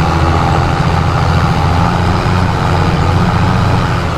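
Vehicle engine idling with a steady low rumble, a dubbed-in engine sound effect rather than anything the toy makes.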